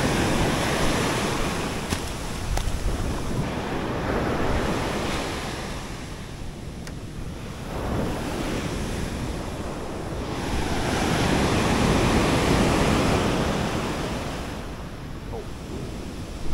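Ocean surf breaking and washing up the beach, swelling and fading in slow surges and loudest about three-quarters of the way through, with wind buffeting the microphone.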